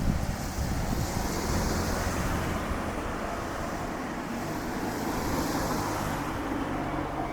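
Road traffic with a low steady engine hum through the middle, and wind buffeting the microphone in low gusts.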